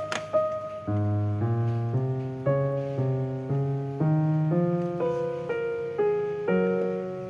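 Background music: a gentle melody of single notes stepping to a new pitch about twice a second over a held low bass line.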